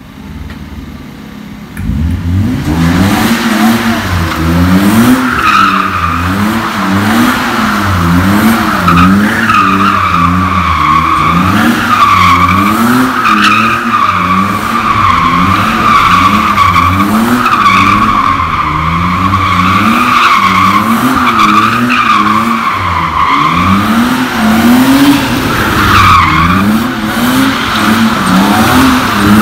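BMW E30's M50B25 2.5-litre straight-six revving up and down over and over, about once a second, while the rear tyres squeal steadily through a drift. Quieter for the first couple of seconds, then loud.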